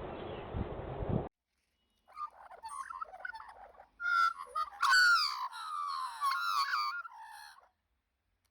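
Bird calls: a run of warbling, gliding calls that starts a couple of seconds in and stops shortly before the end, loudest about five seconds in. It is preceded by a noisy hiss that cuts off suddenly after about a second.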